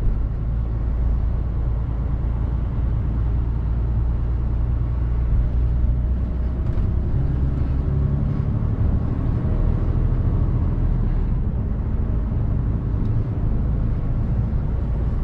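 Mercedes-Benz Actros truck's diesel engine running while driving, heard from inside the cab over road noise. The engine note shifts about halfway through.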